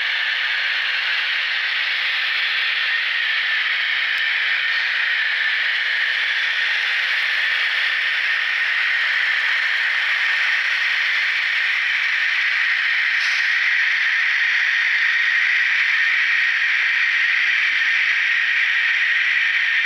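ESU LokSound V3.5 sound decoders in KATO HO-scale KiHa 82 diesel railcar models playing a recreated diesel engine sound through their small speakers. It is a steady rattling hiss with no low rumble, growing slightly louder as the train comes close.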